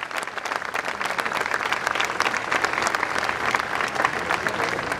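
A crowd applauding, a dense, steady patter of many hands clapping.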